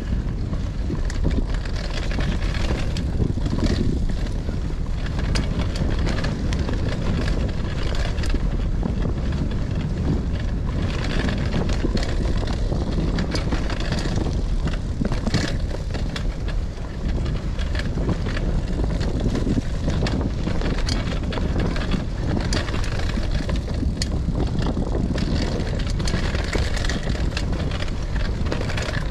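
Steady rumble of wind on the microphone and a gravel bike's tyres rolling over a dirt trail at speed, with frequent short clicks and rattles from the bike.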